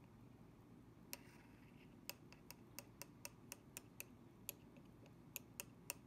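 Light, quick tapping of a thin metal candle tool against the rim of an amber glass candle jar. About a dozen small ringing clicks come at roughly four a second, after a single tap about a second in.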